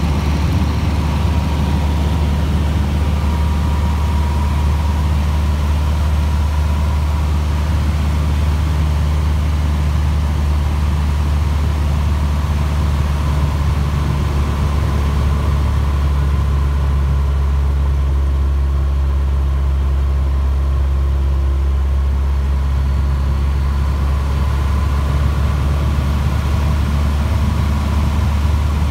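Cessna 150's four-cylinder Continental O-200 engine and propeller droning steadily in cruise, heard from inside the cabin. The hiss of airflow above the drone dims for a few seconds around the middle, during the slow part of a lazy-eight maneuver.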